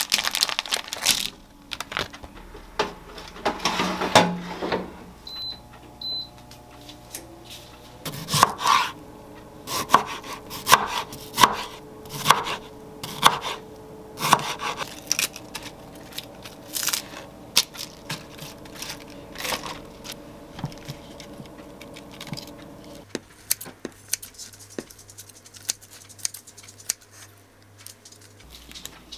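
Plastic wrapping crinkling as a packaged chicken breast is unwrapped, two short high beeps about six seconds in, then a kitchen knife cutting through a tomato onto a wooden cutting board in a run of sharp knocks, roughly one a second.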